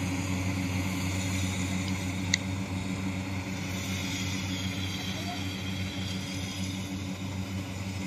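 Small rice combine harvester's engine running steadily while cutting standing rice: a low, even drone, with one sharp click about two seconds in.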